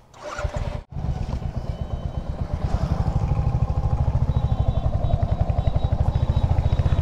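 Royal Enfield Hunter 350's single-cylinder engine running with a steady, rapid low thump that grows slightly louder. It starts about a second in.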